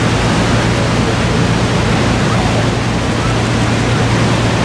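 Steady roar of Niagara's Horseshoe Falls and its spray, with a constant low hum underneath.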